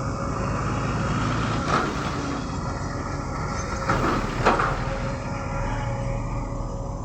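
Excavator's diesel engine running steadily under load, with a few sharp metallic clanks about two, four and four and a half seconds in.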